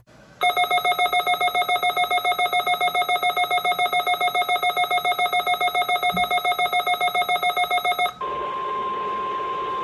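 Emergency weather alert tones. A rapidly pulsing electronic alarm beeps about seven times a second for some eight seconds, then switches to a steady single-pitch tone, the NOAA Weather Radio warning alarm tone.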